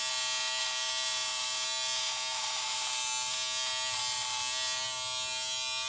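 Braun XT5 battery trimmer-shaver running steadily as its blade is drawn along facial stubble: an even electric buzz with a hiss over it.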